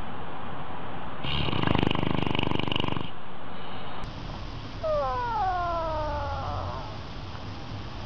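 A sleeping bloodhound snores once, a fluttering snore of about two seconds that is the loudest sound here. After a cut, a small animal gives a long whine falling in pitch, lasting about two seconds.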